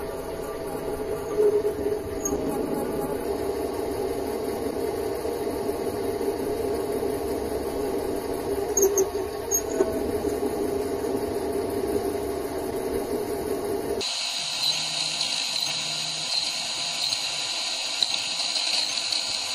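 Mini lathe running, its tool taking a rough cut along a stainless steel rod: a steady hum with a few short clicks. About fourteen seconds in the sound changes abruptly, the low hum dropping away and leaving a higher hiss.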